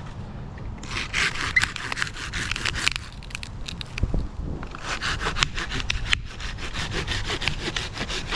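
Pruning handsaw cutting through a tree branch in two spells of rapid strokes, the second starting about halfway through.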